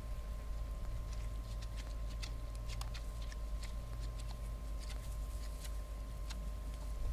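Warthogs feeding in dry grass and dung, with irregular crisp clicking and crunching from their chewing and rooting. The clicks come thickest in the first few seconds, over a steady low rumble and a thin steady high hum.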